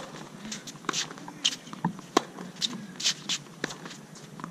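Tennis point on a hard court: a sharp racket-on-ball crack of a serve right at the start, then a string of quick clicks and scuffs about every half second from tennis shoes on the court and the ball's further bounces and hits as the rally goes on.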